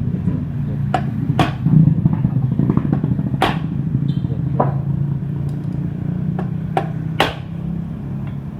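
A small motorcycle engine running steadily, with several sharp metallic clinks of tools on metal over it.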